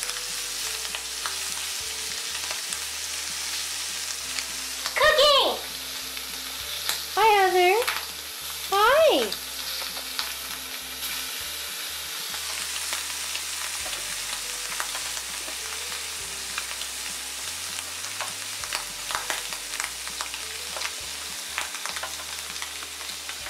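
Shrimp frying in melted butter in a pan on an electric hot plate, a steady sizzle. About five to ten seconds in, a cat meows three times, louder than the frying, and a few light clicks follow later.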